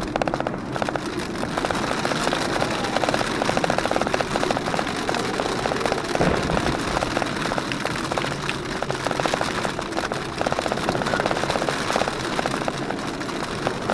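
Storm rain pelting the Jeep Wrangler JKU's roof and windshield in a dense, steady crackle, heard from inside the cabin over the running engine and the windshield wiper.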